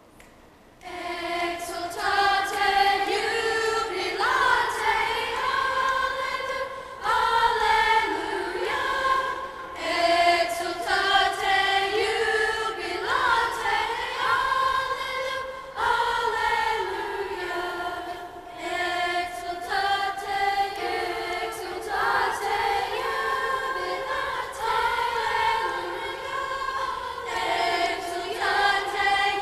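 School choir singing, beginning about a second in, in sustained sung phrases with brief breaks between them.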